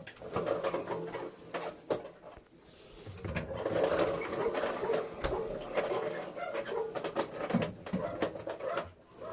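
Washing machine running with a fast, irregular knocking and rattling, the unexplained knock that marks a fault of unknown cause. It grows louder about three seconds in.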